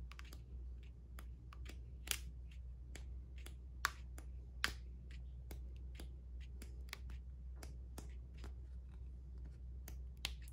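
Sheets of a sticker book being flipped by hand, each page giving a short papery flick or snap, many in quick succession, a few sharper snaps about 2, 4 and 5 seconds in, over a faint steady low hum.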